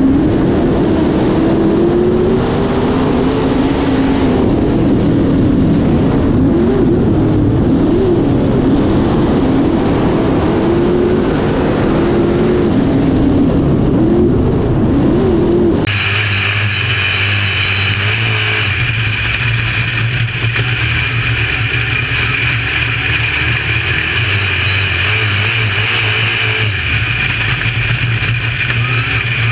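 UMP dirt modified's V8 engine at racing speed, heard from inside the cockpit, its note rising and falling as the throttle is worked through the turns. About sixteen seconds in the sound changes abruptly to a steadier, higher-whining engine drone.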